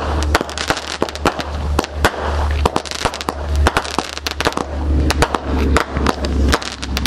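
Consumer fireworks item "Counter Attack" firing: a rapid, irregular string of bangs and pops from shots bursting in the air, several a second, over a steady low rumble.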